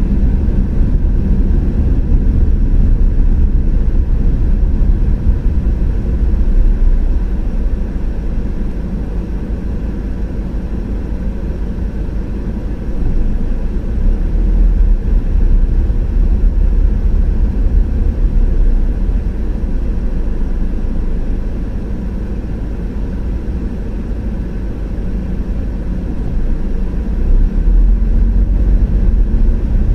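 A car driving along a road: steady low rumble of tyre and engine noise, swelling louder and easing off a few times.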